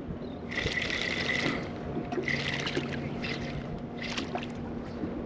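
Spinning reel cranked in short spurts, a whirring about five times with pauses between, as a bucktail jig is worked back for Spanish mackerel.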